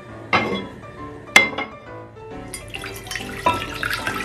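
Water poured from a glass container into a pot on the stove, a steady splashing from about two and a half seconds in, after two sharp clinks. Background music with a melody plays throughout.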